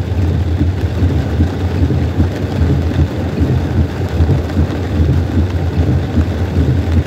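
Steady low rumble of a car's engine and tyres on a wet highway, heard inside the cabin, with rain hiss over it.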